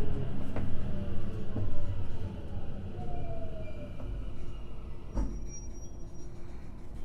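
Tokyo Metro 05 series subway car running, heard from inside: the Mitsubishi IGBT inverter's traction-motor whine falls in pitch over a steady rumble of wheels on rail. A few sharp clicks of wheels over rail joints come through, the clearest just over five seconds in.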